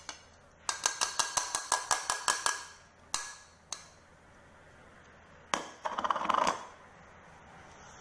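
Small metal mesh strainer tapped rapidly against the bowl and dish while a milk-and-flour mixture is strained through it: about a dozen quick metallic taps, two single taps, then a short busier rattle.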